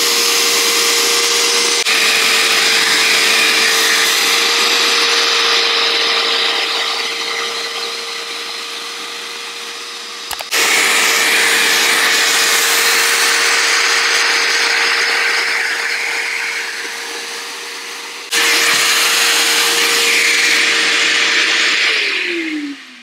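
Bissell SpotClean portable carpet cleaner running, its motor whining steadily under a loud rush of suction as the hand nozzle draws spilled iced coffee out of a rug. The rush fades slowly and comes back suddenly twice, and near the end the machine is switched off and its whine falls away.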